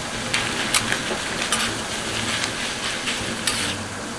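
Pork and udon noodles sizzling on a 6 mm thick iron griddle while metal turners stir and toss them. A steady frying hiss runs under short clicks and scrapes of the utensils on the iron plate.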